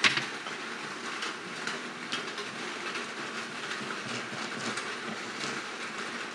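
Small steel change gears of a lathe thread-cutting attachment's tumbler reverse, handled and turned by hand: a sharp metallic click at the start, then light, irregular clicking and rattling of the gear teeth over a steady background hiss.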